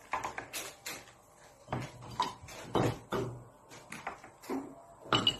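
Ice cubes being worked out of a plastic ice tray and dropped into a glass of water: a string of separate knocks and clinks, roughly one every half second.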